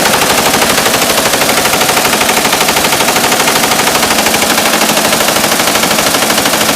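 M249 squad automatic weapon, a belt-fed 5.56 mm light machine gun, firing full-auto in one long unbroken burst of rapid, evenly spaced shots.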